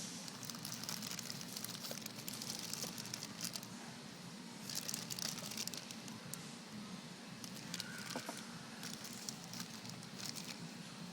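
Packaging being handled and crinkling in irregular bursts, loudest about five seconds in, over a steady low hum.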